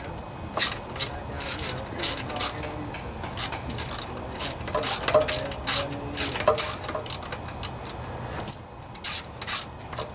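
Socket ratchet wrench tightening a mounting bolt, a series of short rasping ratchet strokes about one or two a second.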